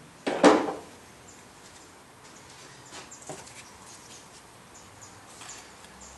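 Hands working plastic and rubber parts off a diesel engine top: a loud, brief clatter about half a second in, then a few small clicks and rustles.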